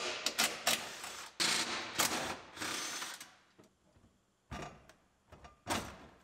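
A ratchet wrench working loose the bolts that hold a 2004 Chevrolet Silverado's steering column, in a run of bursts over the first three seconds. A few separate knocks and clunks follow.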